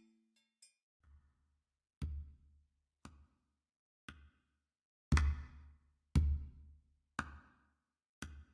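Background music: a drum beat of about one hit a second with a deep bass drum, growing louder about five seconds in.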